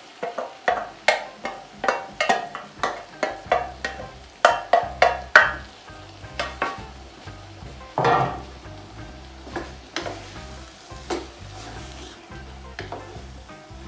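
Beef chunks going into a hot pan of fried vegetables and sizzling, with a quick run of sharp knocks in the first five seconds as a wooden spoon scrapes them out of an enamel dish, then a wooden spoon stirring the sizzling stew with sparser knocks against the pan.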